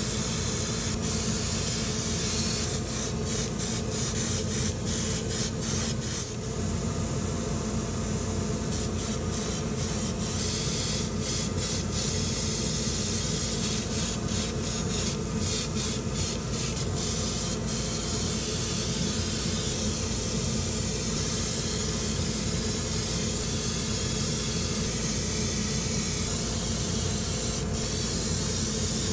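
Airbrush hissing steadily as it sprays lacquer onto a small plastic model part, over a low steady hum. Runs of sharp clicks come a few seconds in and again around the middle.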